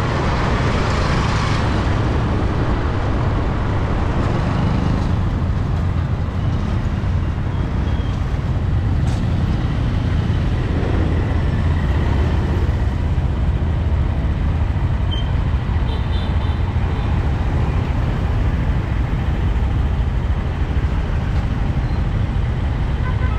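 Steady street traffic noise, a constant low rumble of passing vehicles, loudest and brightest in the first second or two.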